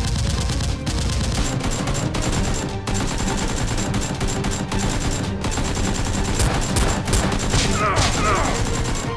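Rapid, continuous automatic gunfire sound effects, many shots overlapping, with background music underneath.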